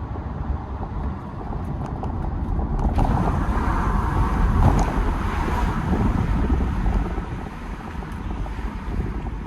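BMW E92 320d's N47 four-cylinder turbo-diesel with an open air intake, heard while driving: engine and intake noise swell over a few seconds, peak about halfway through, then ease off.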